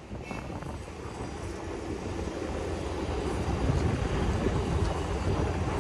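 Diesel railcar express train running close by, its engine and wheels a dense low rumble that grows steadily louder.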